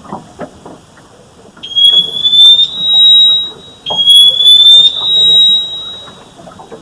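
A horrible, tormenting noise of unknown origin: a high tone sounds twice, each time sliding up in pitch and then holding steady for about two seconds, over a low, irregular clatter of knocks. The couple wonder whether it is a military sonic weapon.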